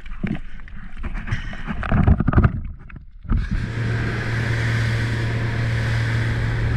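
Irregular knocking and handling noises, then, about three seconds in, a boat engine starts running steadily with a constant low hum.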